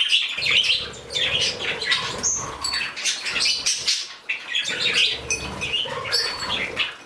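A mixed flock of small pet birds (Bourke parakeets, budgies and a canary) chirping and squawking in quick, overlapping calls. Two longer stretches of low fluttering run under the calls, like wings flapping.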